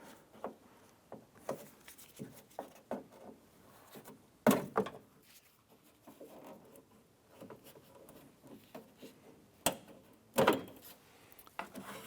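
Scattered plastic clicks and light knocks as a trim tool pries the plastic retaining pins off the interior door handle's latch cable. The loudest knocks come about a third of the way in and again near the end.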